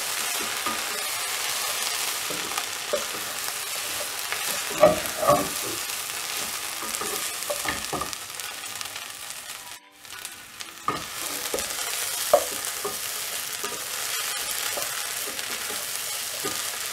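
Mint, coriander and curry leaves sizzling in hot oil in a nonstick saucepan as a wooden spatula stirs them, with occasional knocks and scrapes of the spatula against the pan. The sound drops out briefly about ten seconds in.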